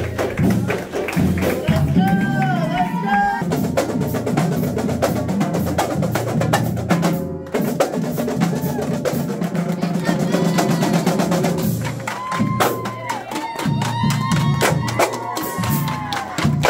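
Marching drumline of snare drums, bass drums and cymbals playing a fast cadence, with students cheering and whooping over it.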